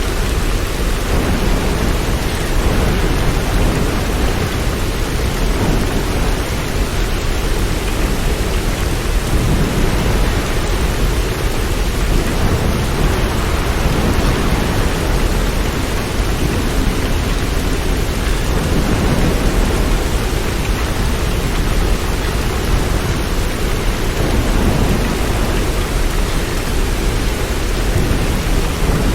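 Steady, unbroken rain noise with a constant low rumble underneath.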